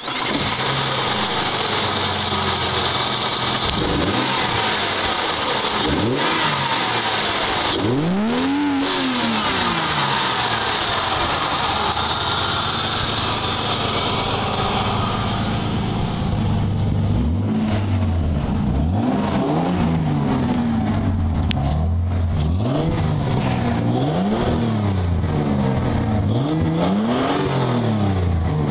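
Ford Falcon EL engine breathing through a pod air filter and half exhaust, revved hard with its pitch rising and falling. There is a loud induction and exhaust note, one big rev about a third of the way in, and a run of about five quick blips near the end.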